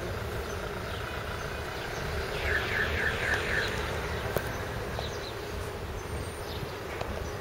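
Steady low outdoor rumble of distant traffic and wind. About two and a half seconds in, a small bird chirps five times in quick succession, with a few fainter chirps later.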